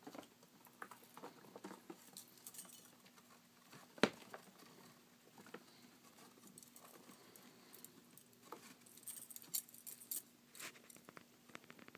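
Faint, scattered scratching, rustling and small clicks of a pet rodent being handled in and around its cage, with one sharp knock about four seconds in.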